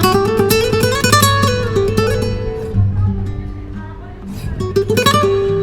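Acoustic guitar music: fast plucked note runs, a quieter passage of ringing notes, then strummed chords near the end.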